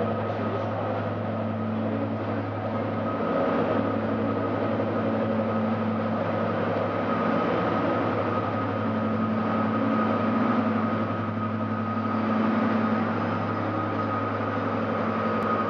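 Class 55 Deltic diesel-electric locomotive, its twin Napier Deltic two-stroke engines running as it draws slowly into the platform and passes close by: a steady engine drone with a high whine over it.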